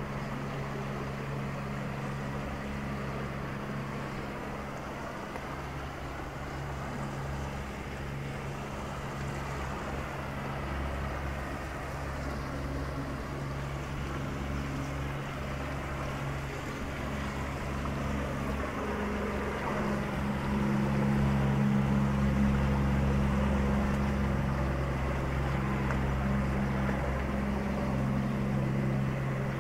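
Outboard motor of a Jikkokubune wooden tour boat running steadily as the boat motors along the canal, growing louder about two-thirds of the way through as it comes closest.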